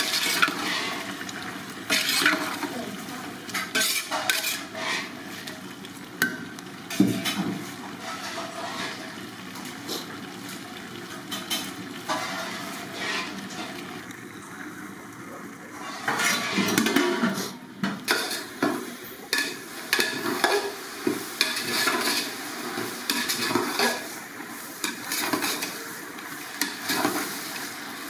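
A ladle stirring potatoes in a large aluminium pot, with irregular scrapes and clinks against the pot over the sizzle of the frying, and a short lull about halfway through.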